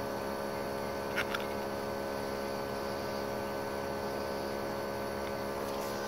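9,000 BTU inverter ductless mini split's outdoor unit running, a steady hum with several fixed tones from the compressor and condenser fan. Two light clicks about a second in.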